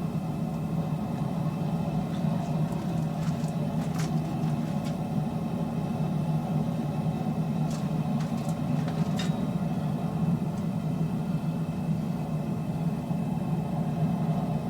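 Forge running with a steady low drone while a Damascus billet heats, with a few faint clicks or taps.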